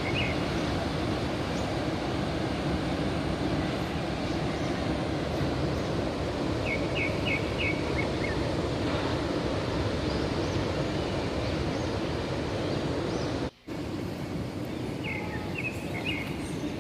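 Steady rushing noise of sea surf. Twice, a bird gives a quick run of four or five short high chirps. The sound cuts out for a moment about three-quarters of the way through.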